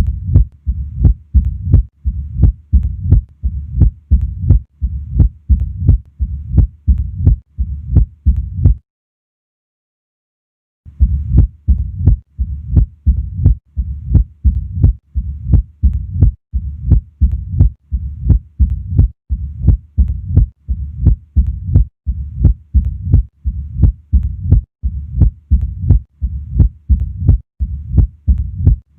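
Heart sounds of mitral stenosis heard at the apex through a stethoscope: a regular beat a little over once a second, each with sharp clicks followed by a low rumbling murmur. The sound drops out to silence for about two seconds about a third of the way in, then the beat resumes.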